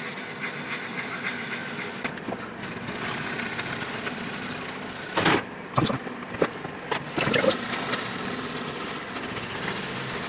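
A maroon 7447-type abrasive pad rubbed by hand in circles over the polyurethane clear coat of a guitar body, level-sanding out the orange peel: a steady scratchy rubbing hiss, with a few louder scuffs about halfway through.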